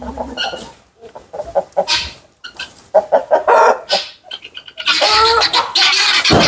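Brahma chickens clucking in short, broken calls. About five seconds in, a much louder, harsher noise sets in.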